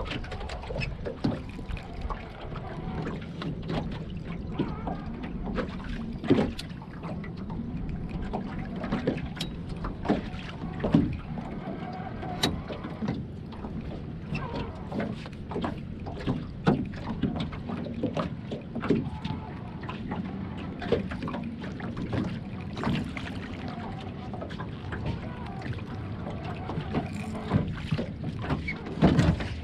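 Irregular knocks and clicks of gear and fish being handled aboard a small fishing boat, over a steady low hum.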